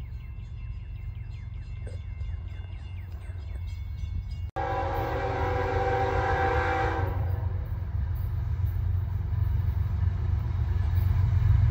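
Horn of an approaching CSX freight locomotive, a chord of several tones, sounding for about two and a half seconds starting about four and a half seconds in, over a low rumble that grows steadily louder as the train comes closer.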